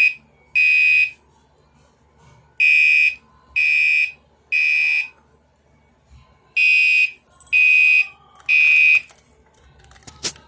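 Electronic fire alarm horn sounding in the temporal-three evacuation pattern: loud, high-pitched beeps in groups of three, about a second apart, with a longer pause between the groups. A sharp click comes just before the end.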